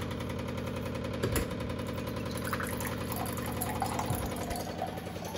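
Water running from a kitchen water purifier's spout into a steel tumbler, over a steady machine hum from the purifier.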